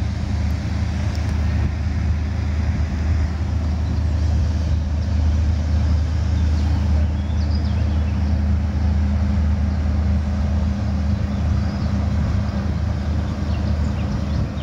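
Passenger river cruise ship passing under way, its diesel engines giving a steady deep drone, a little louder in the middle.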